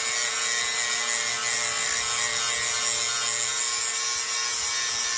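Electric angle grinder running steadily under load, its disc grinding the steel canister off a forge-welded ball-bearing Damascus billet: a constant whine over a grinding hiss.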